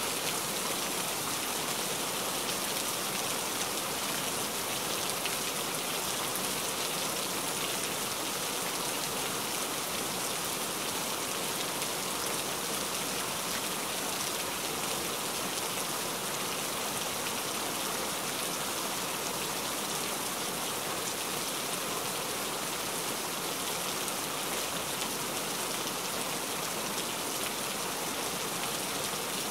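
Heavy rain falling steadily: an even, unbroken hiss of many drops.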